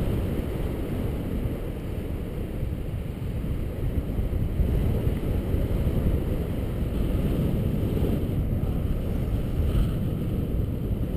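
Wind buffeting the microphone of a paraglider pilot's camera in flight: a steady low rumbling noise that swells and eases.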